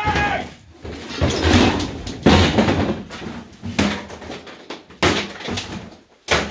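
A string of irregular heavy bangs and cracks: a hammer smashing up a table, about one blow a second.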